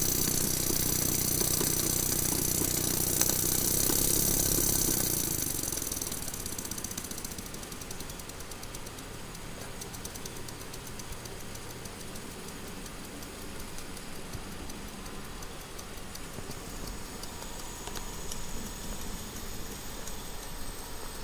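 Stuart model steam plant running on live steam: a steady hiss with a mechanical rattle. About five seconds in the hiss and rattle drop off sharply, leaving a quieter, even run with faint ticking, and a soft hiss rises again near the end.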